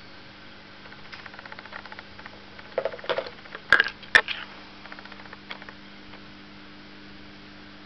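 A plastic model biplane being handled and set down on a ribbed plastic tray: a run of light plastic clicks and taps, the loudest two sharp clicks close together about four seconds in, over a faint steady hum.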